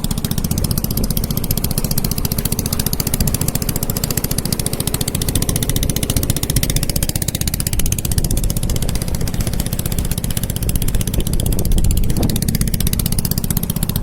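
A small engine running steadily at a constant speed, carrying the fishermen off after they set out.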